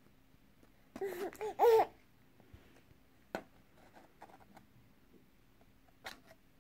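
A toddler babbling: a short run of high-pitched syllables that rise and fall, about a second in. Later comes a single sharp tap, with a couple of faint clicks near the end.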